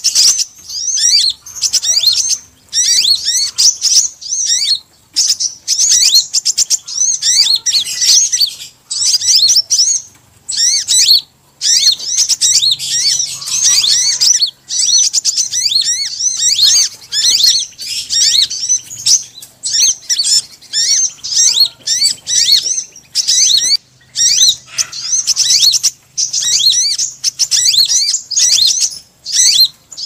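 Crimson sunbird (kolibri ninja) calling as a bird-lure recording: rapid, high-pitched chittering trills in phrases a second or two long, separated by brief gaps.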